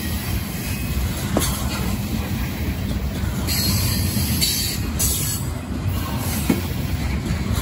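Coal gondola cars of a freight train rolling past with a steady low rumble of steel wheels on rail, broken a few times by short bursts of high hiss.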